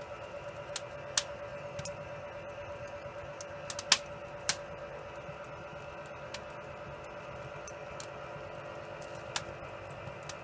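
Wood fire crackling, with sharp, irregular pops, the loudest a little before the middle, over a steady hum.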